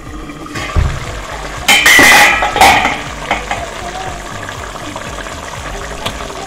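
Ground coconut paste being tipped and scraped from a steel mixer jar into a pan of kuzhambu. There is a low thump about a second in, then two loud, rough scraping noises close together about two seconds in, then a few light metal clinks.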